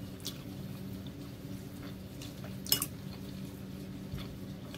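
Blue plastic chopsticks clicking against a ceramic noodle bowl, one sharp click a little past halfway and a fainter one near the start, over a steady low hum.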